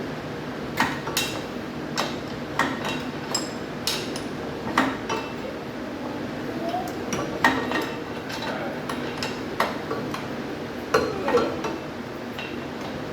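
Irregular metallic clinks and knocks of a hand wrench working the upper mounting nut of a Jeep Wrangler's front shock absorber, some strikes ringing briefly.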